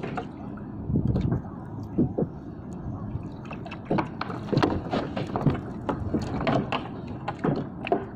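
Water slapping and gurgling against the hull of a small boat, with irregular knocks and clicks of a fishing rod and gear being handled on board.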